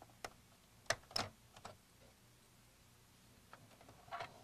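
Light clicks and taps of plastic as the Macintosh Portable's display assembly case is handled and its plastic latch is released: about five clicks in the first two seconds and a short cluster near the end.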